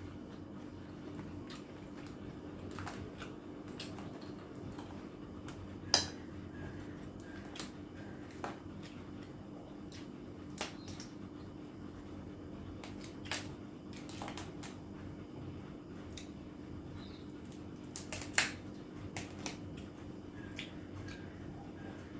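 Utensils and food clinking and clicking against a plate now and then during a meal, with two sharper clinks about six seconds in and near eighteen seconds, over a steady low hum.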